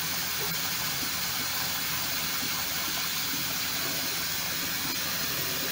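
Bathroom sink faucet running steadily, with water pouring into a cup held under the spout.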